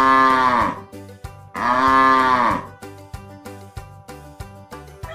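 Cow mooing twice: two long moos about a second apart, each rising then falling in pitch, over background music with a steady beat.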